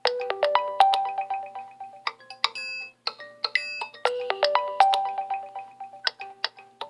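A smartphone ringtone playing: a melody of short, bell-like notes that die away quickly. There is a brief break about three seconds in, and the phrase starts over about four seconds in.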